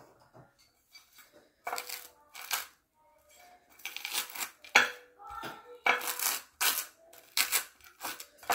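Table knife spreading butter over a slice of toasted bread on a plate: a run of short, scratchy strokes, a few at first and then about two a second from around four seconds in.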